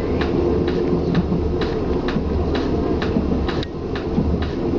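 KLIA Ekspres electric train running at speed, heard from inside the carriage: a steady low rumble with sharp clicks about twice a second.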